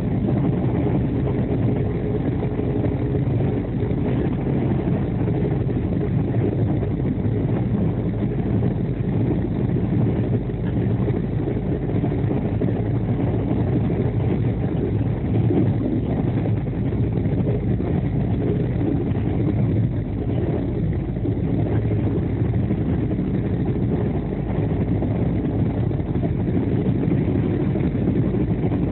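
Running noise of an express passenger train heard from inside a coach while it travels at speed: a steady low rumble of wheels on rails that never lets up.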